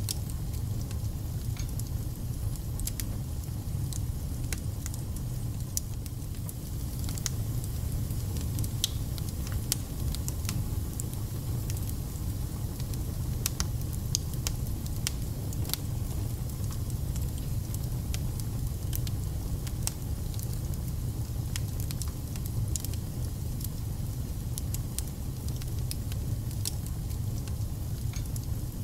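Wood fire burning in a fireplace: a steady low rumble with sharp crackles and spits coming at irregular moments.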